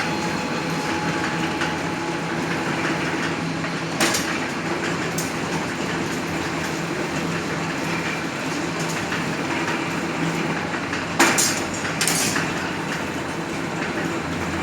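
CNC wire ring-bending machine running with a steady mechanical hum and clatter. Sharp metallic clacks come about four seconds in, and twice more near the end.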